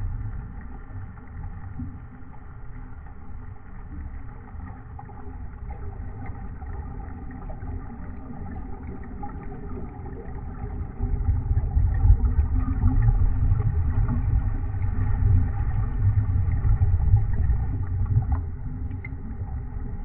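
A low rumble heard underwater. It swells clearly louder a little past halfway and holds for several seconds before easing.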